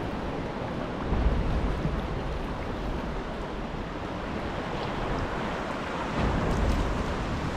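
Sea swell washing and breaking along the foot of the cliffs and around the kayak, as a steady rushing noise. Wind buffets the microphone in low rumbling gusts about a second in and again near the end.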